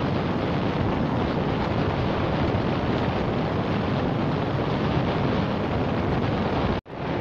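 Steady rushing wind buffeting the microphone on a 70cc motorcycle riding at speed, with the bike's running noise beneath it. The sound cuts out abruptly for a split second near the end.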